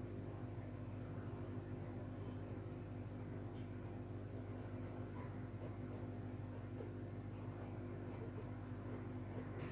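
Graphite pencil scratching on drawing paper in many short, quick, irregular strokes while a small figure is sketched, over a steady low hum.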